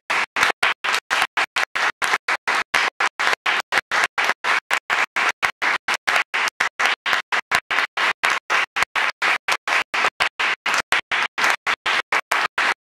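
Audience applauding, the sound chopped by regular dropouts about five times a second.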